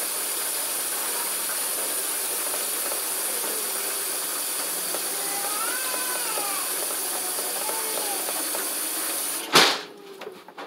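Steady rushing hiss that cuts off with a loud knock about nine and a half seconds in, with faint high rising-and-falling calls over it.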